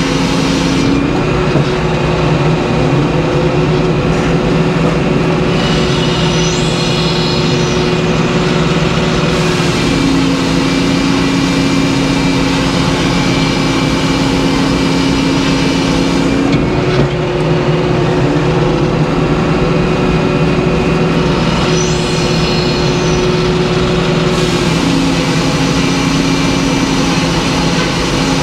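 Circular sawmill head saw sawing a white pine log into boards, a loud steady machine running throughout. Its tone drops and rises between two pitches twice, and a brief high rising whine comes in twice.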